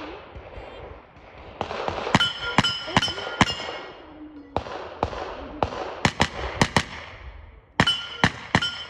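Rapid gunshots from a JP-5 pistol-caliber carbine fired in quick strings of several shots during a stage run, with a metallic ring lingering after some of the shots.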